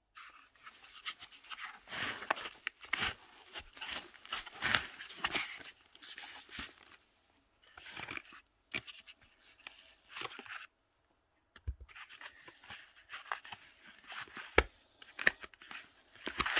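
Flashlight packaging being handled: a cardboard box and its foam insert rustling and scraping, with small knocks and clicks. The noise stops briefly twice partway through.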